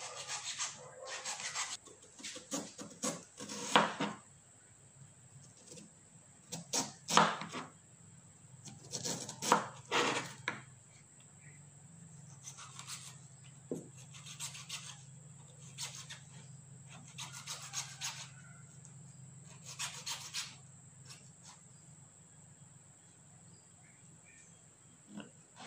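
Kitchen knife slicing through fibrous banana stem down onto a plastic cutting board: irregular cuts and taps of the blade on the board, a few much louder than the rest, with a low steady hum coming in underneath about a third of the way through.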